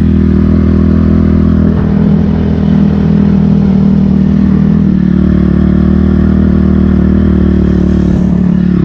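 2006 Honda CRF250R's single-cylinder four-stroke engine running at a steady, low engine speed as the dirt bike is ridden, with a rougher, clattering stretch from about two to five seconds in.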